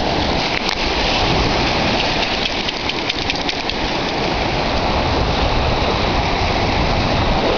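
Steady rushing noise of ocean surf, with wind rumbling on the microphone and a short patch of light crackling about three seconds in.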